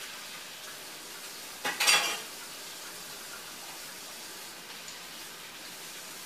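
Covered grain hopper cars of a freight train rolling past, a steady hiss of steel wheels on rail, with a brief louder clatter about two seconds in.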